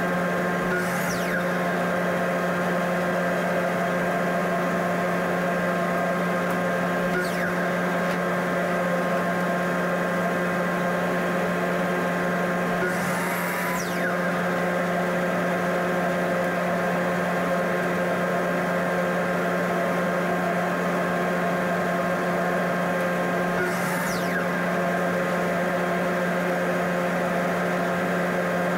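Steady electric machine hum of shop equipment running, with several constant tones and no change in level. A few faint, quick downward sweeps cross it about a second in, near the middle and near the end.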